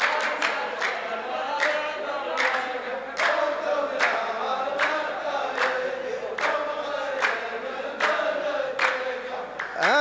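A chorus of men chanting a sung verse in unison with steady hand claps a little faster than one a second: the clapping rows (saff) of a Saudi muhawara poetry duel taking up the poet's line.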